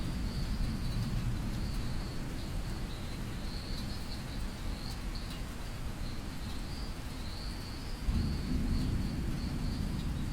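Low rumbling of distant thunder over a soft hiss of rain, the rumble swelling again about eight seconds in. A steady high chirring of insects runs through it.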